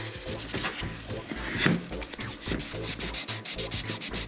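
A pad scrubbing the glass dome of an old explosion-proof lamp: a run of repeated scratchy rubbing strokes, with one harder stroke a little under two seconds in.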